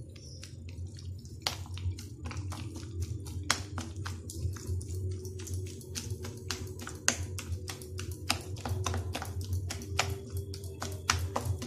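Hand beating thick idli batter of ground rice and urad dal in a steel bowl before it is left to ferment: quick, irregular wet slaps and clicks, several a second.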